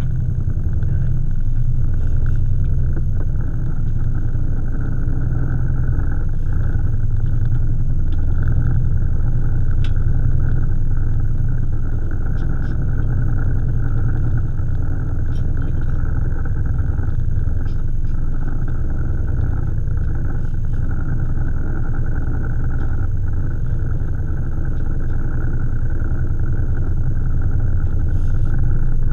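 Boat's engine running steadily: a continuous low rumble with a steady higher hum above it.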